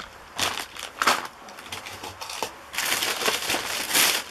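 Thin plastic shopping bag rustling and crinkling as hands rummage inside it. There are a few short bursts at first, then a longer, louder stretch of crinkling near the end.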